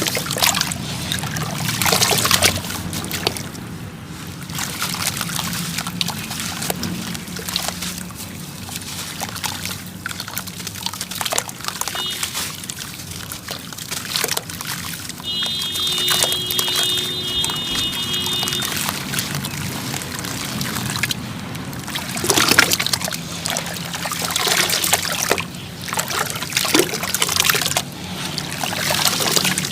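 Wet sand-cement chunks crumbling and crunching, with water trickling and splashing through them in irregular crackles and dribbles.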